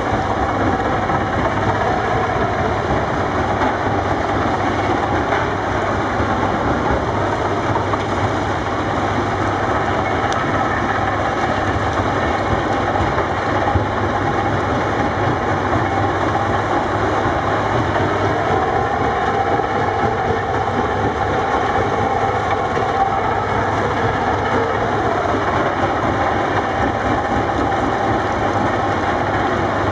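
Tracked mobile rock crusher running with a CAT 330D excavator working over it: diesel engines and crushing rock in a steady, loud mechanical din, with an engine note that rises and falls a little past the middle.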